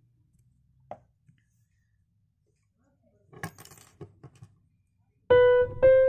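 Cute background music: a near-silent gap with a few faint clicks, then light piano-like keyboard notes start near the end.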